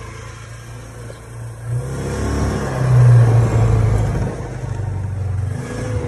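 Polaris side-by-side utility vehicle's engine running, then rising in pitch and getting louder about two seconds in as the vehicle pulls away.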